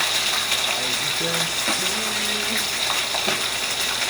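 Fish browning in hot oil in a pot: a steady sizzle with scattered crackles and spits.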